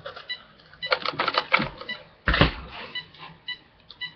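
Clicks and knocks of hands handling an RC car's parts and wiring, with one louder knock about two seconds in. Short high electronic beeps sound every half second or so.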